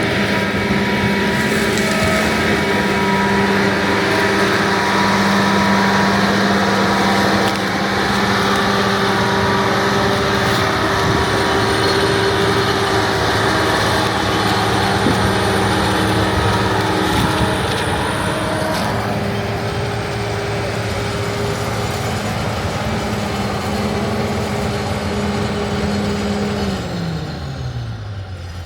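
Farm machinery engine running steadily at high revs, then winding down near the end as its pitch falls.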